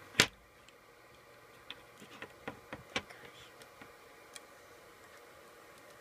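Small sharp clicks and ticks of a plastic hook working rubber bands on the pegs of a plastic band loom: one louder click right at the start, then a scatter of small clicks a couple of seconds in.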